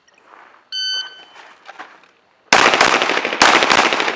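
Electronic shot timer's start beep about a second in, then a rapid string of semi-automatic pistol shots starting about two and a half seconds in, fired fast and close together with echo off the range.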